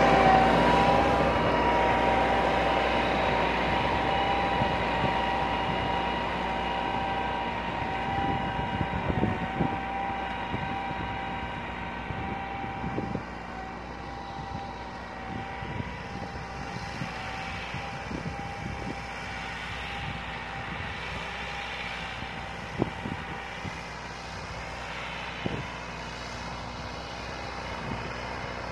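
Massey Ferguson 375's Perkins four-cylinder diesel engine working under load as the tractor pulls a tine cultivator through dry soil, with a steady high whine over the engine note. The sound fades over the first dozen seconds as the tractor moves off, and a few sharp knocks break in later.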